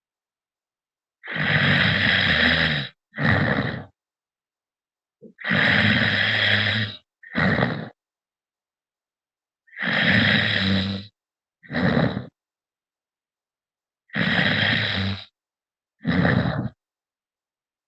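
A man snoring, heard over a phone call: four rounds of a longer snore followed by a shorter one, about every four and a half seconds, with dead silence between them.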